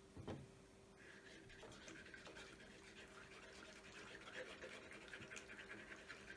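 Soft knock, then faint, brisk scratching and rubbing with many small ticks as solvent-based ink is worked onto a marking stamp for re-inking.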